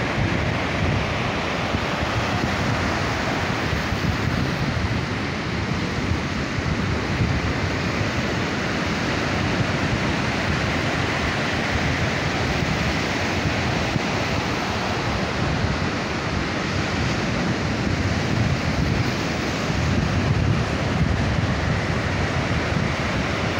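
Sea surf breaking and washing onto a sandy beach, a steady rushing noise, with wind buffeting the microphone.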